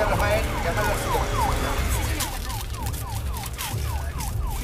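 Ambulance siren sounding in quick repeated falling sweeps, about three to four a second, heard from inside the moving ambulance over the low rumble of its engine and road.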